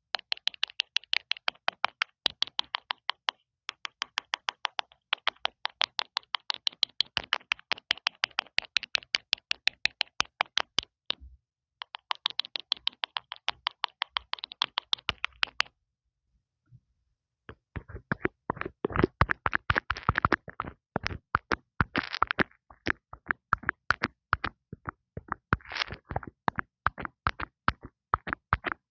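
Fingertips tapping rapidly on an earphone's built-in microphone, several sharp taps a second, close and crisp. The tapping stops for about two seconds past the halfway point, then resumes with a fuller, deeper tap.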